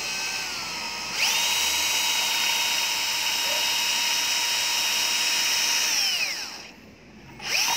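Bosch GSB 120 LI cordless drill/driver in second speed gear running a twist bit into wood, its motor whining. The motor picks up speed about a second in and runs steadily for about five seconds. It then winds down with a falling pitch as soon as the trigger is released, and gives a brief rev again near the end.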